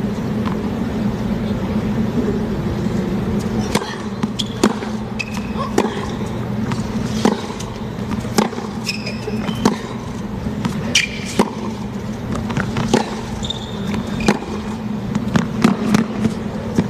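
Tennis rally on a hard court: sharp pops of the ball struck by the rackets and bouncing, roughly one every second or so, with short shoe squeaks on the court surface, over a steady stadium hum.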